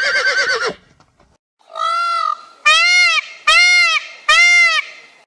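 The tail of a horse's whinny, then a goose honking four times, each honk a clear, nasal call that rises and falls in pitch.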